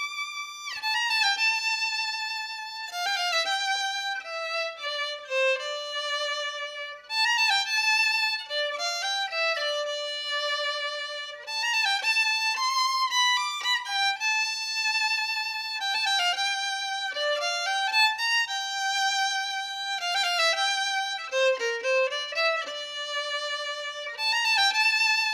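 Solo violin playing a melody, one note at a time.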